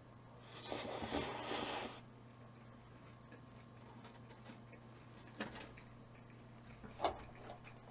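A burst of rustling, scraping noise about a second and a half long near the start, then a couple of short clicks and taps later on.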